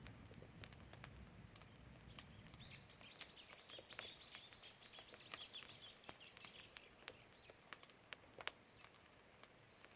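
A bird singing faintly: a long run of quick, repeated high chirps from about three seconds in to about seven seconds, with scattered sharp clicks throughout.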